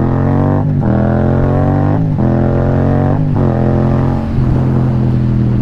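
Yamaha FZ-07's parallel-twin engine accelerating hard through the gears: the pitch climbs, drops at each of three quick upshifts and climbs again, then holds steady in top gear from about four seconds in.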